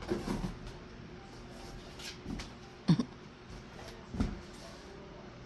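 Boxes and packaging being handled: a few separate knocks and rustles, the loudest a sharp knock about three seconds in.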